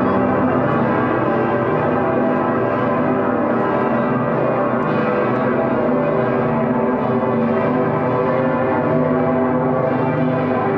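The St. Peter's Bell (Dicker Pitter) of Cologne Cathedral, the world's largest free-swinging bell, ringing in full swing. Its strokes overlap into one steady, unbroken ringing made of many lingering tones.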